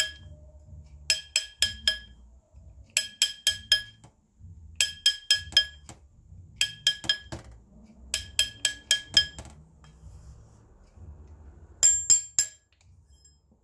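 Small hammer tapping a gold ring on a steel mandrel to stretch it toward size: quick groups of about four sharp, ringing metal taps, a group every couple of seconds, with a pause before the last group near the end.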